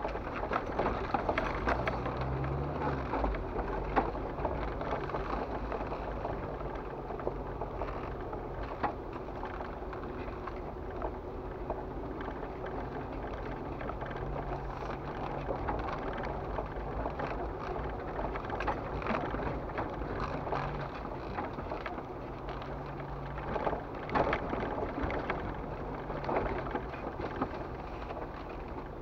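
Jeep Wrangler TJ driving slowly over a rough dirt and gravel trail, heard from inside the cab: the engine runs low and steady under a constant crunch and patter of tyres on gravel and leaves, with scattered knocks and rattles from the body over bumps.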